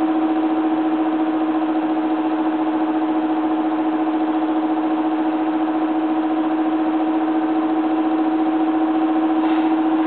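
Small electric blower motor running steadily: an unchanging mid-pitched hum over a hiss of moving air.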